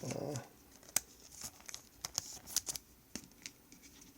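Trading cards and a foil card-pack wrapper being handled, with scattered crinkling and light sharp clicks.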